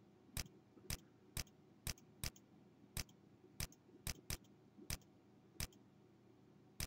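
Computer mouse clicking, about a dozen faint single clicks at uneven intervals, as points of a polyline are placed one by one in drawing software.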